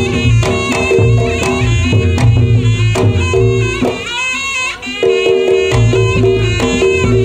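Reog Ponorogo gamelan accompaniment for the Bujang Ganong dance: a wavering, bending slompret (shawm) melody over busy kendang drumming and repeated bronze pot-gong tones. The lower instruments drop out briefly about four seconds in, then return.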